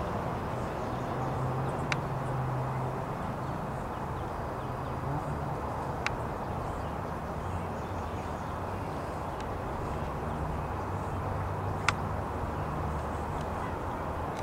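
Steady outdoor background rumble with a low hum, broken by three sharp clicks about two, six and twelve seconds in.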